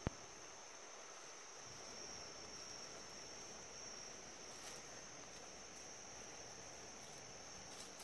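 Steady high-pitched drone of forest insects, one even tone held throughout, with a single sharp click right at the start.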